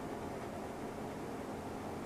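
Steady background hiss of room tone, even and unchanging, with no distinct sounds standing out.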